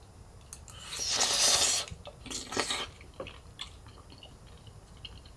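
A person slurping noodles: a long airy slurp about a second in and a shorter one just after, then quiet chewing with small wet clicks.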